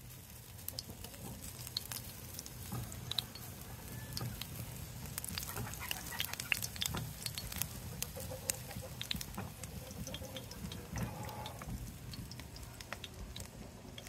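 Chickens clucking now and then over a steady low rumble, with many scattered sharp crackles and clicks.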